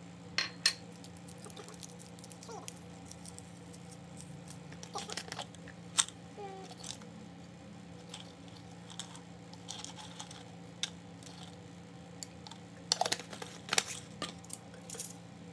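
Light clicks and taps of kitchen items being handled, a glass jar of cinnamon sticks and a small enamel coffee pot, with a cluster of clicks about 13 seconds in, over a low steady hum.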